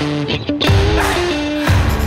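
Background music: a rock-style track with held notes over a steady beat.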